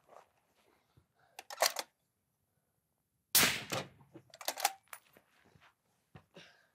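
Suppressed rifle shots fired from prone during a timed string: a few sharp reports with short clicks of handling between them, the loudest a little over three seconds in.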